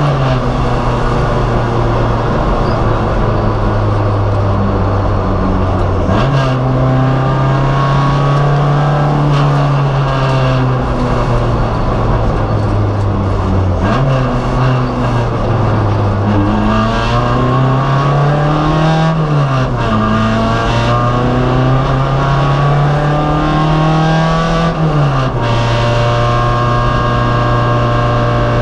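Race car engine heard onboard at full load, its revs climbing and falling again and again, with sudden drops and jumps in pitch at each gear change.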